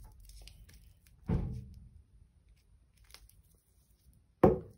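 Plastic shrink-wrap on a bath bomb being handled and picked at, with faint crinkling. Two sharp thumps, about a second in and near the end, are the loudest sounds.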